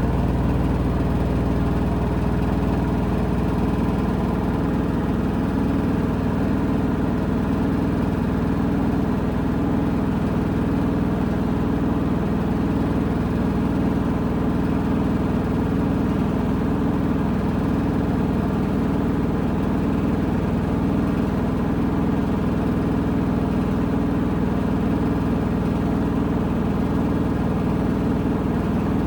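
Washing machine on its spin cycle, running steadily: a low hum with a faint, regular wobble about once a second.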